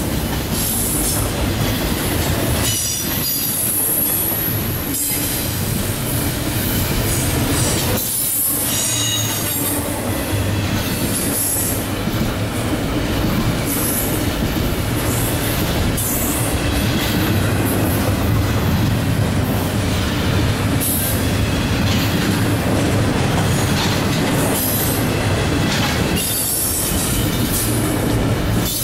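Double-stack intermodal train's well cars rolling past close by, a steady loud rumble and clatter of steel wheels on rail, with high-pitched wheel squeal that comes and goes.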